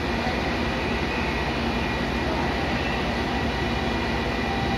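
Diesel engine of a CC 300 locomotive idling close by, a steady running sound with a constant high whine over it.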